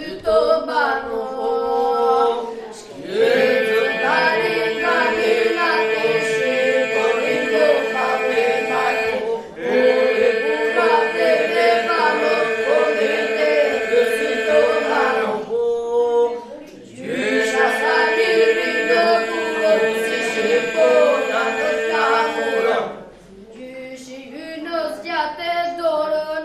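Boys' group singing a folk song: a boy's solo voice, then the whole group joining in three times over a steady held note beneath the tune, with short breaks between the phrases, and the solo voice alone again near the end.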